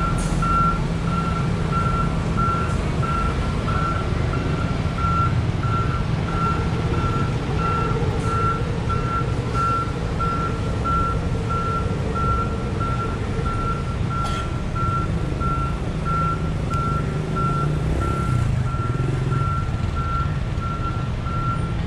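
Electronic warning beeper sounding one high tone evenly about twice a second, over a steady low engine rumble.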